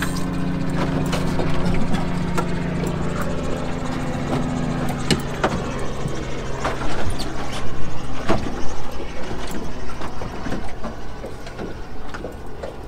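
A boat engine idling with a steady low hum that weakens about halfway through. Scattered knocks and clicks sound on the boat over it.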